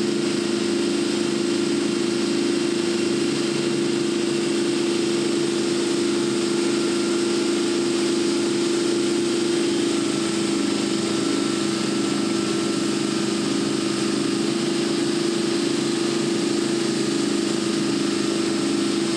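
Wakeboard tow boat's engine running at a steady cruising speed, a constant drone under a hiss of rushing water and wake.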